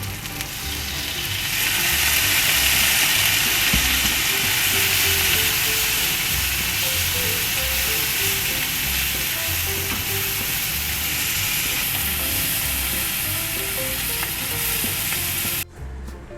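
Long green onions (naganegi) sizzling in hot oil in a frying pan, a steady hiss that grows louder about a second and a half in. The sizzle cuts off suddenly near the end.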